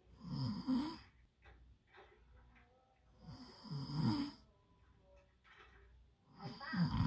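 A sleeping puppy snoring: three snores, about three seconds apart.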